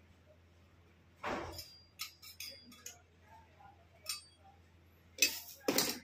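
Scattered metallic clinks and taps from tools and a gas torch being handled on a hard floor, with a short noisy burst about a second in and the loudest clatter near the end.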